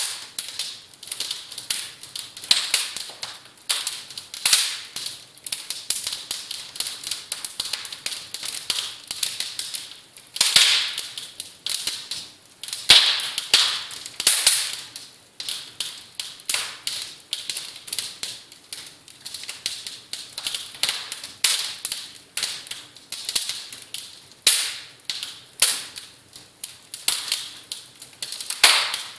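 Rapid, irregular sharp clicks and taps, several a second, with a few louder snaps among them.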